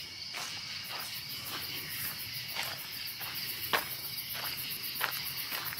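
Footsteps crunching along a gravel path, about two steps a second, one step landing louder about halfway through. Under them runs a steady chorus of crickets and other night insects.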